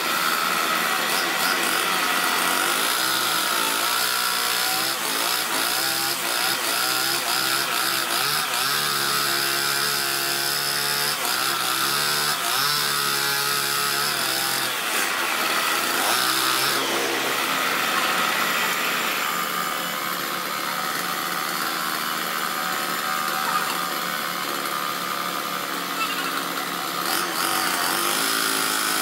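Wood lathe running steadily, its spinning wooden workpiece sanded with sandpaper held against it and then rubbed with a wad of fibre, giving a continuous abrasive hiss over the motor's hum.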